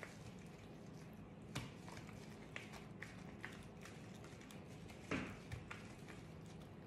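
Soft squishes and light taps of oiled, gloved hands pressing and folding dough on a granite countertop, with two slightly louder slaps about a second and a half in and about five seconds in, over a faint steady hum.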